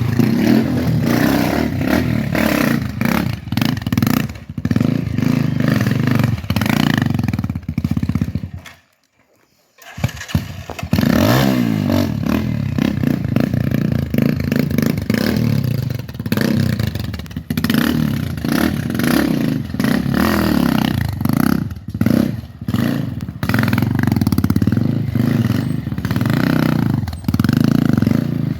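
Rebuilt Cobra motorcycle's engine running and revving unevenly. It cuts out for about a second a third of the way in, then comes back with a short rise in pitch.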